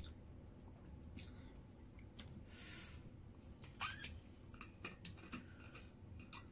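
Quiet handling sounds from a screw-top thermos bottle: a few light clicks and taps as it is picked up and its cap is twisted open, with a short soft hiss a little before them.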